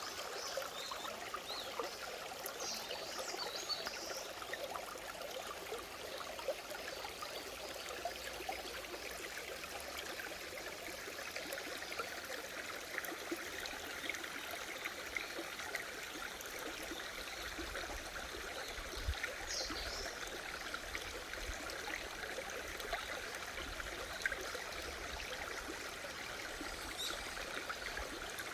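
Mountain stream flowing steadily over rocks, a continuous babbling and trickling, with a couple of brief high bird chirps.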